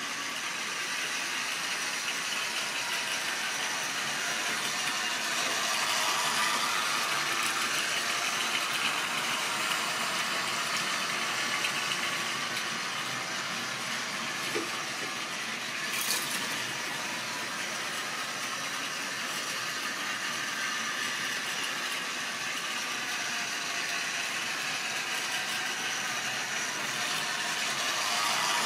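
Model railway train running on the layout: its small electric motor and the wheels of its wagons rattling along the track. It swells louder as the train passes close, about a fifth of the way in and again at the end, with one sharp click just past halfway.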